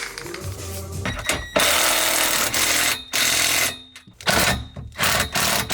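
Power cutting tool, typically an angle grinder, cutting steel roll-cage bolts to length: a loud steady hiss in several bursts, the longest about a second and a half, each starting and stopping abruptly.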